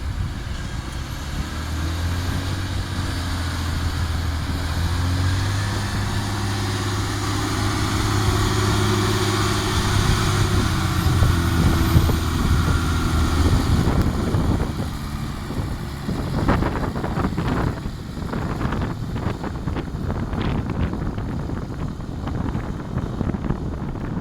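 Dump truck's diesel engine running steadily, with wind buffeting the microphone. From about two-thirds of the way in, the engine tone drops away and irregular crackling noise takes over.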